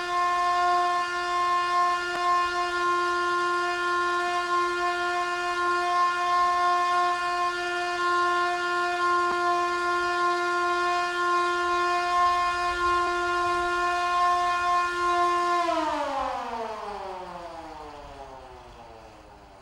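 Siren sounding one steady, held tone for about fifteen seconds, then winding down: its pitch falls and it fades away.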